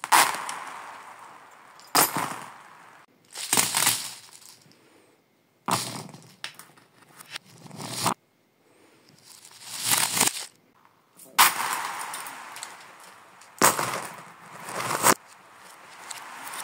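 Handfuls of beads and small toy balls clattering and scattering across a hard floor, played in reverse: a string of about nine clatters, several of which swell up and stop abruptly.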